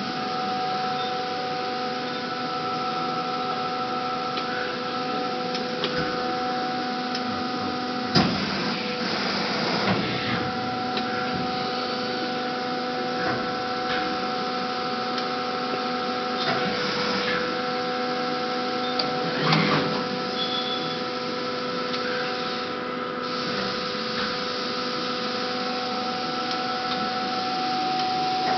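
Trumpf TrumaBend V200 hydraulic press brake running: a steady hum with a few held tones from its motor and hydraulic pump. A handful of knocks and clunks sound over it, the loudest about eight seconds in and another around twenty seconds.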